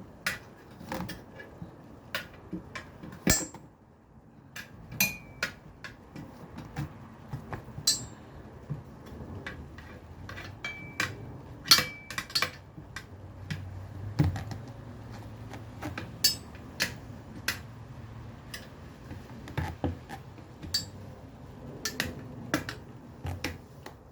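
Steel tire spoons clinking and knocking against a wheel rim and tire changer as a tire bead is levered on by hand: irregular sharp metallic clanks, some ringing briefly, with a scrape and creak of rubber between them.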